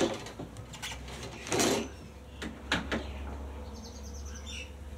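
Several sharp knocks and a short clatter from motorcycle fork parts and tools being handled, followed by brief bird chirps near the end.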